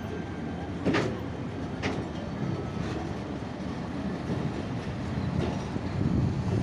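Bangladesh Railway passenger coach rolling out over the track: a steady low rumble of the running gear, with sharp wheel clacks over rail joints about once a second in the first few seconds.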